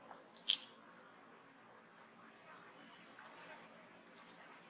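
Faint short, high chirps repeating in pairs, like an insect such as a cricket, over a quiet hiss, with scattered sharp clicks and one louder click about half a second in.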